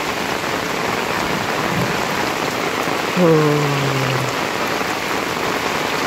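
Heavy rain pouring steadily onto a flooded lane. A little past halfway, a short low call, falling in pitch over about a second, rises above the rain.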